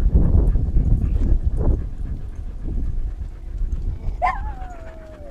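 Low rumble and knocks from a dog-mounted camera jostling as the dog moves. About four seconds in, a dog gives one drawn-out whine that starts high and slides down in pitch for about a second.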